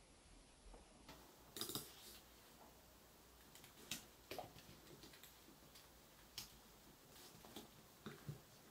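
Near silence: faint room tone with several short, faint clicks and taps at irregular intervals.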